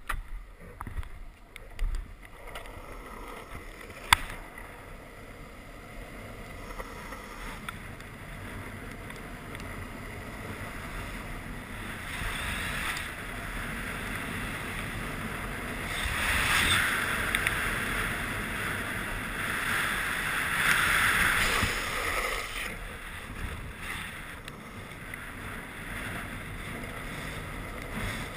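Wind rushing over a helmet-mounted action camera, with longboard wheels rolling on asphalt, during a fast downhill run. The rush grows louder as speed builds, is loudest in the middle, then eases off. A single sharp click comes about four seconds in.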